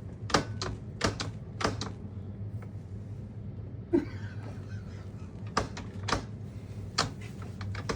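Sharp metallic clicks and clacks from an old safe's combination dial and lock being worked, in irregular clusters: several in the first two seconds, a gap, then more from about five and a half seconds in.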